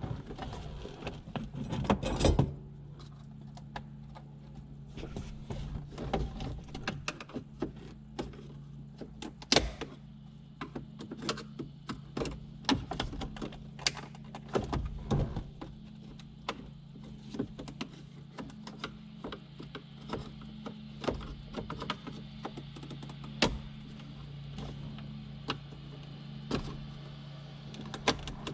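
Irregular clicks, taps and knocks of hands prying at and handling parts in a Jeep Wrangler TJ's dash, with a few louder thumps, over a steady low hum.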